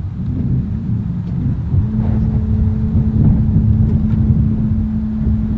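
Wind rumbling on the microphone. About two seconds in, a steady electric hum starts as the powered canopy of the Rolls-Royce 103EX concept car lifts open.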